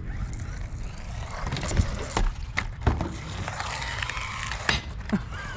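Small electric RC buggy (Arrma Typhon Grom) running on concrete, with a low rumble, a faint motor whine rising and falling, and a handful of sharp knocks and clacks as it bumps about with a broken shock.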